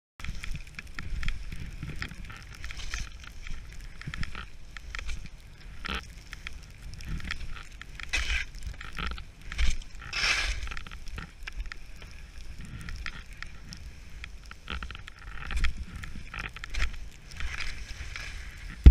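Skis scraping and hissing over snow, in irregular surges with the turns, over a low rumble of wind on the camera's microphone.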